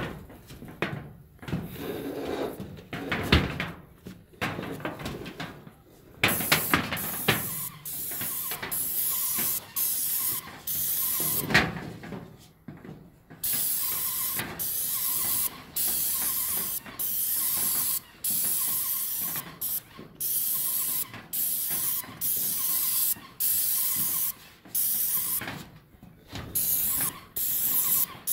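Airless paint spray gun hissing in short bursts, switched on and off roughly every second, as paint is laid onto metal roof tiles. For the first few seconds there are only irregular knocks and scuffs.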